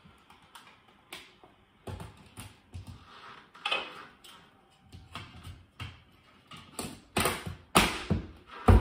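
Hands twisting and fitting a white plastic device onto a ceiling mount: irregular clicks, knocks and short scrapes of plastic, with a run of louder knocks near the end.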